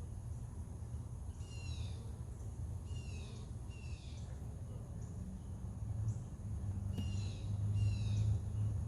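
A bird calling outside: five short, slightly falling calls, one at a time and then in pairs. A steady low hum runs beneath and grows louder in the last few seconds.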